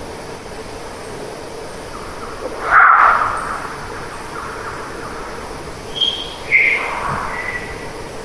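Field recording of unidentified animal calls over a steady hiss: one loud call about three seconds in, then short high whistles and another call near the end. The recordist takes them for the barking and whistles of a yowie display.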